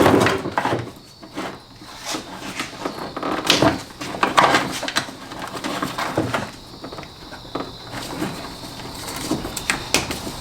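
Irregular clicks, knocks and rustling of a car wiring harness being handled as its plastic plug connectors are worked loose, with a couple of louder knocks near the middle.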